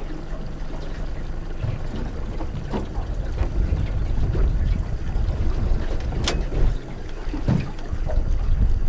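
Small boat under way at trolling speed: outboard motor running low, water against the hull, and wind on the microphone, with a sharp click about six seconds in.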